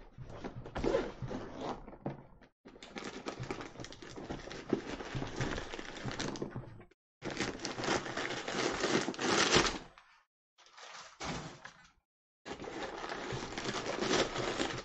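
Packing paper crinkling and rustling as it is pulled out of a new leather travel bag, in several stretches separated by short breaks.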